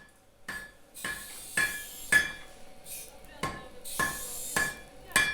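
A run of about nine sharp metallic clinks and knocks at uneven spacing, each with a short ring.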